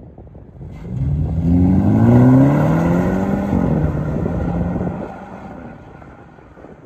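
BMW F20 120i's turbocharged four-cylinder engine through an aftermarket loud exhaust, accelerating hard from a pull-away. The engine note starts about a second in and climbs in pitch, drops back at a gear change about three and a half seconds in, then fades as the car drives away.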